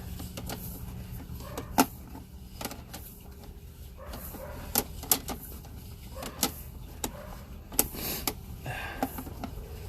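Sewer inspection camera's push cable being fed down a sewer line: irregular sharp clicks and knocks over a steady low hum.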